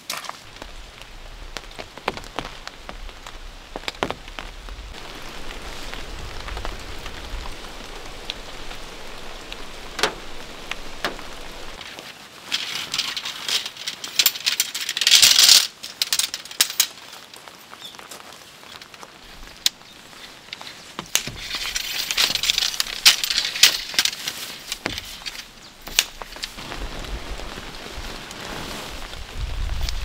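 Steady rain pattering on the campsite and tent fabric, with scattered sharp clicks and knocks. Two louder spells of rustling come about halfway through and again around two-thirds of the way in, and a low wind rumble on the microphone comes and goes.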